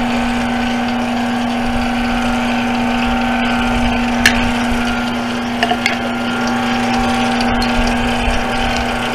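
Metal lathe running with a steady hum as it spins a brake rotor hub, with a few sharp clicks about four and five and a half seconds in.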